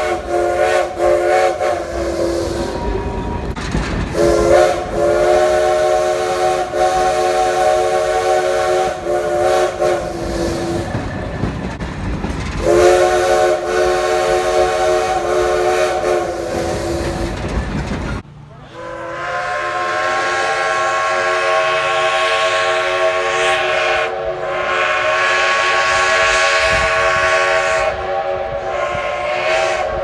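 Steam locomotive chime whistles. A multi-note whistle sounds three long blasts over the rumble and clatter of a moving train. After a sudden cut about two-thirds of the way in, a different chime whistle sounds two long blasts.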